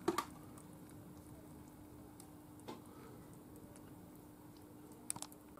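Thick salmorejo pouring quietly from a glass jug into a glass bowl, with a few light clicks just after the start and again near the end, over a faint steady hum.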